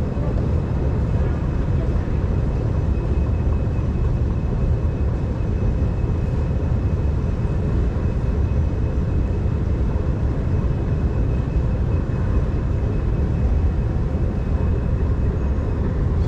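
Escalator running: a steady low rumble with a faint, steady high whine above it.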